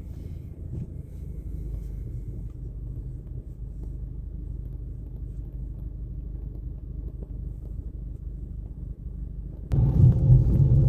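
Tram running, a steady low rumble that abruptly becomes louder and fuller near the end.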